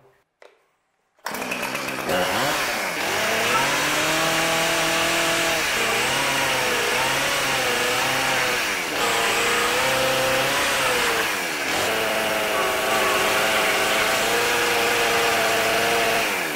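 Chainsaw running and revving, starting suddenly a little over a second in. Its pitch sags and rises again several times as the chain bites into a thin cutout board.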